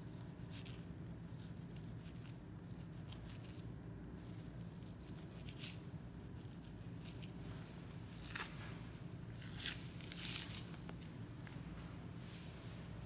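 Boning knife slicing through and peeling away fat on a Kuroge Wagyu beef belly slab: a series of short, sharp slicing and tearing strokes, the loudest a few seconds before the end, over a steady low hum.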